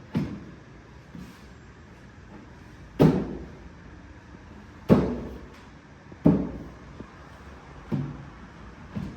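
Wooden kitchen wall cabinet knocking several times, about five sharp knocks a second or two apart, as it is hooked and settled onto its wall brackets.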